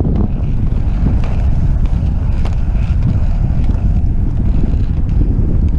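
Wind buffeting the microphone over the steady rumble of rollerblade wheels rolling fast on pavement.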